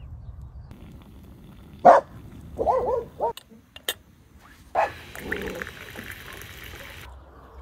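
Tea running from a samovar's tap into a glass mug, a noisy splashing pour that cuts off suddenly about seven seconds in. Before it, about two seconds in, a loud short call is followed by three quick rising-and-falling calls.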